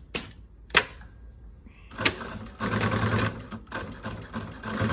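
A JUKI LU-2810A-7 direct-drive, walking-foot industrial lockstitch sewing machine, preceded by three sharp clicks. About two and a half seconds in it starts sewing through thick layered webbing, running at an even stitch rhythm. It eases off briefly and then runs on.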